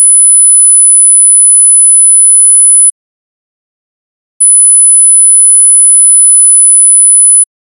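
Pure sine-wave test tone of about 10 kHz, very high-pitched and steady, played twice for about three seconds each with a short silent gap between.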